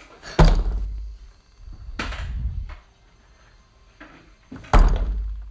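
Two loud, dull thumps, about half a second in and again near the end, each fading out over most of a second, with a softer rustling bump between them.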